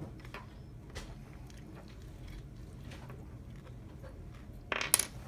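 Faint clicks of wires and a small circuit board being handled while a soldering iron works a joint, over a low steady hum. A short crackly hiss comes near the end.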